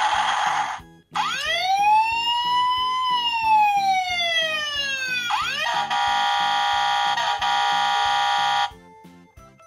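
Tonka toy fire engine's electronic sound effects. A noisy hiss cuts off about a second in, then a siren wail rises and falls once. A steady electronic horn-like tone follows and stops shortly before the end. Background music with a steady beat plays underneath.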